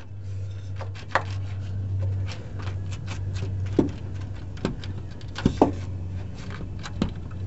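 Ratchet wrench clicking in short, irregular spells as a nut is turned onto the upper mounting stud of a motorhome shock absorber, with sharp metal knocks. A steady low hum runs underneath.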